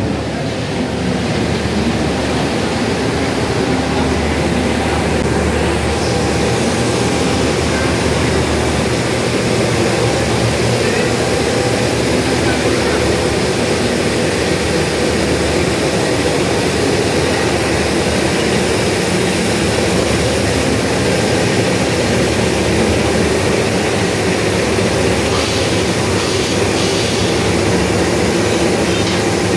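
CC206 diesel-electric locomotive's engine running loud and steady at close range during shunting, a deep, even engine drone.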